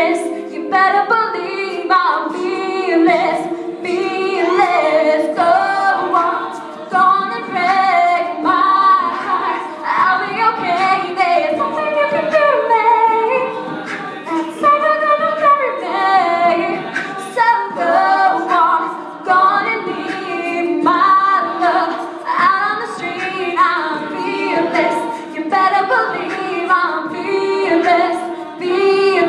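All-female a cappella group singing in several-part harmony, with no instruments.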